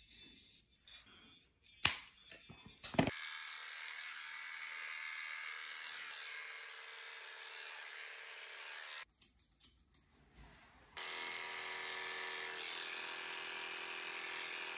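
Electric dog clippers running steadily through a dog's coat, preceded by two sharp clicks. The first clipper runs from about three seconds in and stops about nine seconds in; after a short pause a second clipper with a deeper hum runs until the end.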